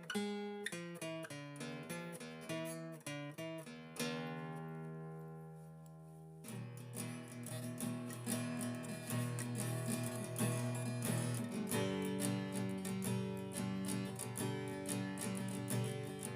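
Background music on acoustic guitar: a run of picked notes, a chord left to ring out about four seconds in, then steady strummed playing from about six and a half seconds on.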